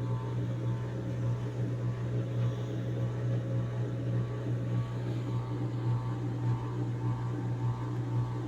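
Electrolux 12 kg washing machine in its final spin, the drum turning at a steady speed with a steady low hum.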